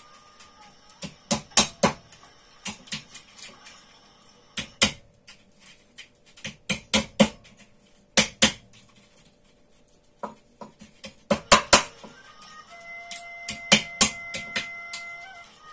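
A hammer cracking walnuts wrapped in a tea towel on a wooden stool, struck in quick runs of several sharp blows with short pauses between. About three-quarters of the way through, a steady tone starts and holds under the blows.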